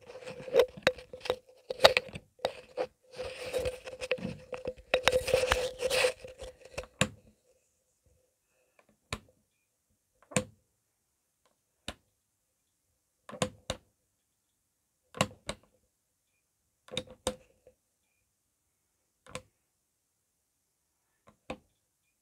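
Rustling and knocking over a steady hum for the first several seconds. Then a fluorescent lamp's glow starter clicks, singly or in quick pairs, every second and a half to two seconds as it repeatedly tries to strike the tube while the tube ends glow.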